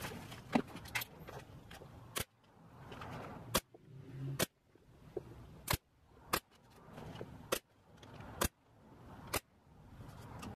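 Pneumatic nail gun on a coiled air hose firing into a wooden box, about eight sharp cracks roughly a second apart.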